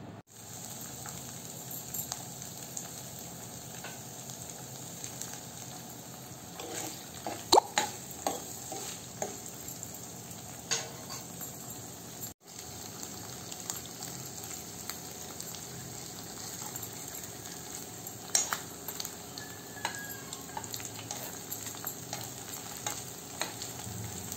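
Paneer cubes frying in hot oil in a non-stick kadhai, a steady sizzle. A few sharp knocks and scrapes come as the cubes and a steel spoon hit the pan, the loudest about a third of the way in and again about three quarters in.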